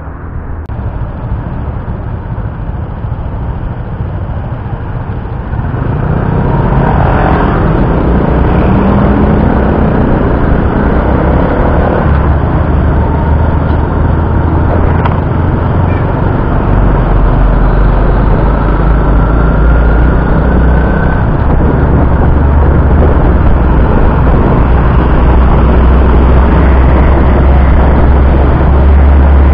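Road noise and wind rumbling on the microphone of a slowly ridden motorcycle in traffic, with other vehicles' engines around it. The rumble sets in about six seconds in and grows stronger after the middle.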